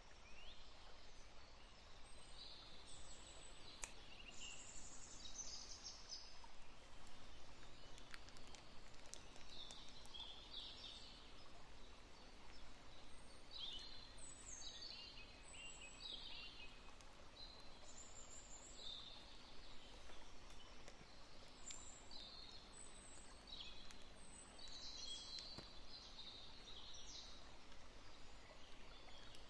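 Faint birdsong: many short, high chirps and trills over a steady background hiss, more of them in the second half.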